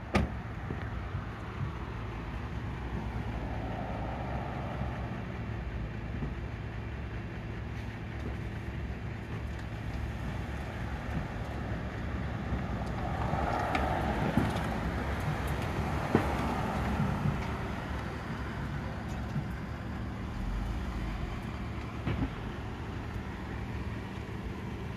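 Steady low hum of an idling car engine, with passing road traffic swelling up about four seconds in and again around the middle; a sharp click at the very start.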